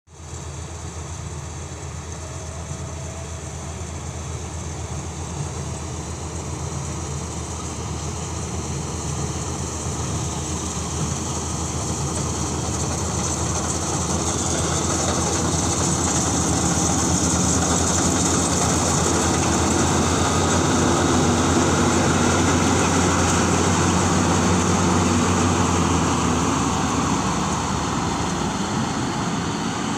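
Rice combine harvester running, its engine droning steadily, growing louder through the middle and easing off slightly near the end.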